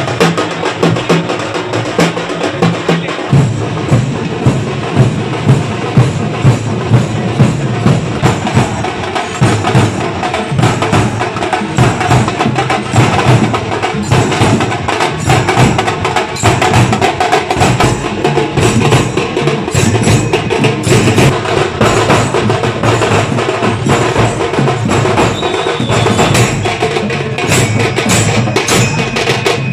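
Drum band of large steel-shelled drums beaten with sticks, with brass hand cymbals clashing along. The heavy beats come about two a second at first and give way to a denser, busier rhythm.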